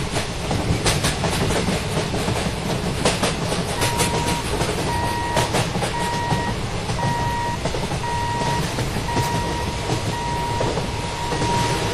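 A train running past, with a steady rumble and its wheels clattering over the rail joints. About four seconds in, a high electronic beep starts, repeating a little faster than once a second.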